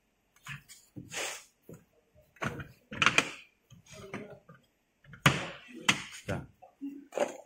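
Hard plastic wardrobe panels being handled and fitted together: a string of irregular knocks and clacks of plastic on plastic.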